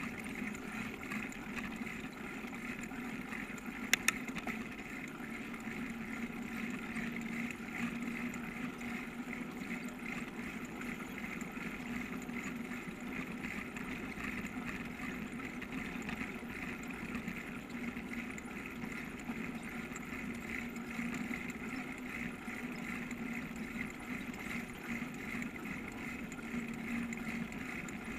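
Steady road and wind noise of a bicycle rolling along a paved street, with two sharp clicks about four seconds in.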